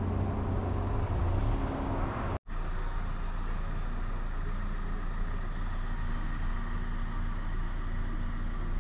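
Pickup truck driving in snow: the engine runs steadily under a haze of tyre and road noise. The sound breaks off for a moment about two and a half seconds in, then carries on slightly quieter.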